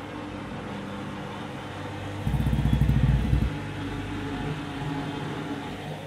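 Washing machine running with a steady motor hum. About two seconds in, a loud low rumbling burst with rapid pulses lasts about a second, with a heavy two-item load that is expected to throw the drum out of balance.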